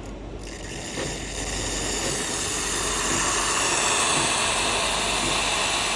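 Steam wand of a KFJ-9818 home espresso machine opened, hissing steam; the hiss builds over the first couple of seconds and then holds steady.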